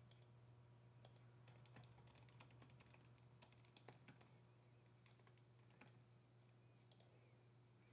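Faint computer keyboard typing: scattered key clicks, denser in the first few seconds, over a low steady hum.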